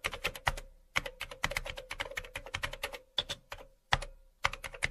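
Computer keyboard typing: quick, irregular key clicks, several a second, broken by short pauses, over a faint steady hum. It cuts off abruptly at the end.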